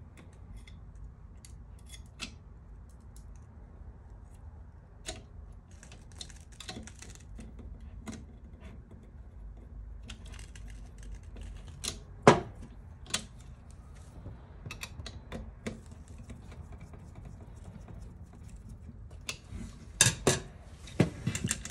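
Scattered small clicks and taps of a screwdriver and screws working on the metal-and-plastic frame of a laser printer fuser unit while parts are handled, with one louder knock about twelve seconds in and a quick run of clicks near the end. A steady low hum lies underneath.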